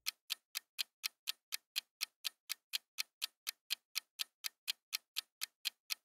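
Clock-ticking sound effect counting down a quiz timer: short, crisp ticks at a steady rate of about four a second.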